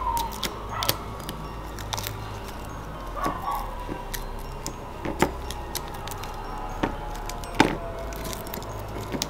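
Background music with a deep bass line, with irregular sharp clicks and knocks over it; the loudest click comes near the end.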